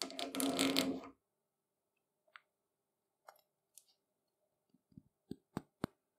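Grinding wheel being handled over a wooden workbench: a few faint clicks, then three or four short knocks about five seconds in. A loud burst of noise lasting about a second comes first.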